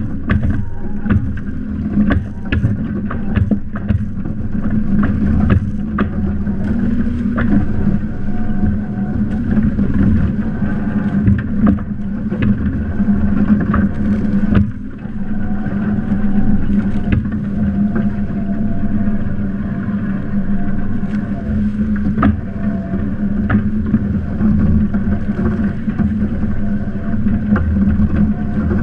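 Windrider Rave trimaran under sail, heard from on board: water rushing and splashing along the hull, with a steady low hum and frequent sharp taps and knocks. Briefly quieter about fifteen seconds in.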